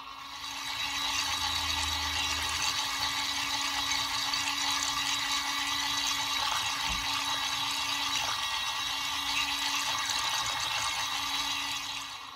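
Toy mini washing machine running with soapy water and a sponge inside: a small motor's steady hum under water churning. It starts about half a second in and stops near the end.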